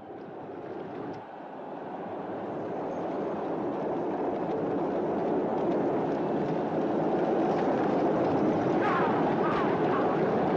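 Film soundtrack of a chariot race: teams of horses and chariots racing as one dense rushing roar that swells in loudness over the first few seconds and then holds. A few short higher cries come through near the end.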